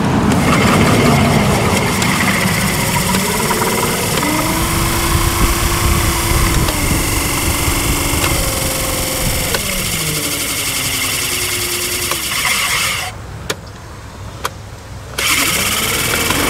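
Prowler 55 lb thrust electric trolling motor running out of the water, its newly fitted prop spinning in air with a steady whirring and a wavering whine. About two seconds before the end it cuts out, with a couple of clicks, then starts again. The prop is rubbing a little, which the owner expects to rub itself in.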